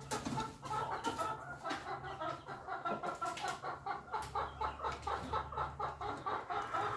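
Chickens calling in a long, even run of short clucking notes, about five a second.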